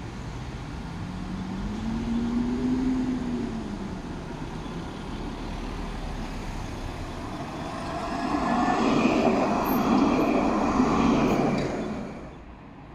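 Electric low-floor tram passing close by, its motors whining and wheels running on the rails, loudest from about eight seconds in and dropping away sharply near the end. Before that a low hum rises and falls in pitch.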